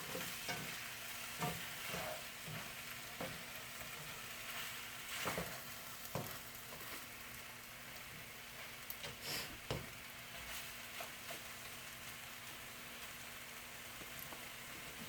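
Chicken wings sizzling in a frying pan, a steady hiss broken now and then by short knocks and scrapes of a utensil stirring them.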